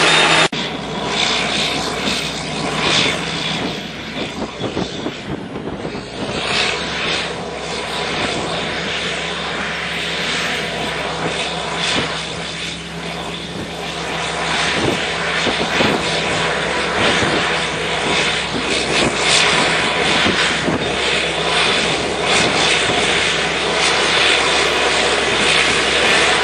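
Bulldozer's diesel engine running steadily under work, with irregular clanks and knocks through the drone.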